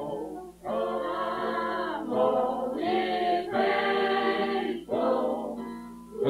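Voices singing unaccompanied in slow phrases of long held notes, with short breaks between phrases. A steady low hum sits underneath throughout, from an old home recording.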